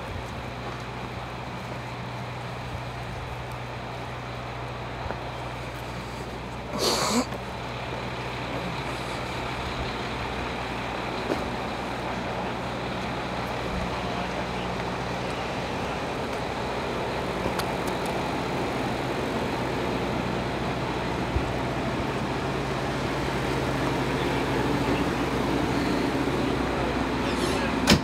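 Steady low drone of idling police trucks, growing a little louder toward the end, with a short hiss about seven seconds in.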